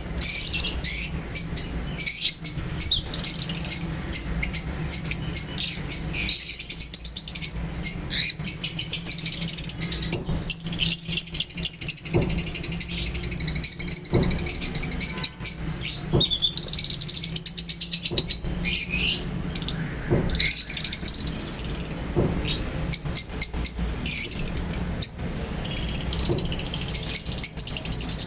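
Small parrots chirping and chattering continuously in quick, high-pitched calls, over a steady low hum.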